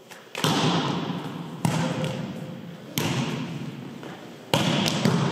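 Volleyball being struck, four sharp smacks about a second and a half apart, each ringing on in the echoing gymnasium.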